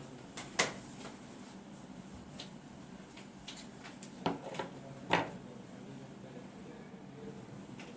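A few sharp knocks and clicks from a treatment table as a patient lies down and sits up on it, the loudest about half a second in and another pair around four to five seconds in.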